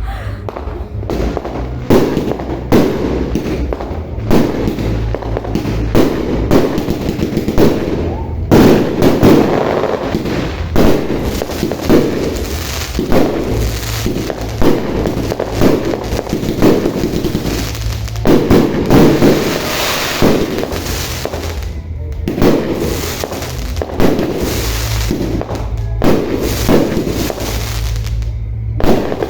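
Fireworks going off in a long series: loud, sharp bangs come irregularly, about one every second or so.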